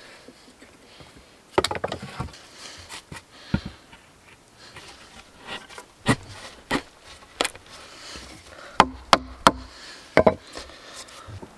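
Irregular knocks and clacks of wood being handled, with scraping in between and a quick run of three sharp knocks about nine seconds in.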